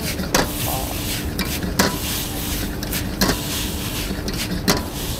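Metal ladle scraping and knocking against a wok as chow mein noodles are stir-fried, about five sharp clinks over a steady hiss from the burner and the frying.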